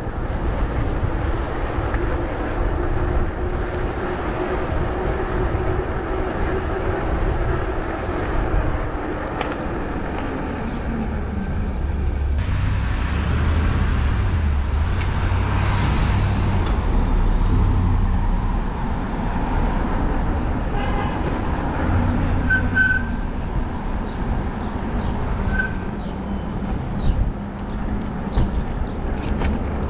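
Road traffic going by over a steady low rumble. One vehicle's note falls in pitch as it passes about ten seconds in, and the traffic is loudest from about twelve to twenty seconds in.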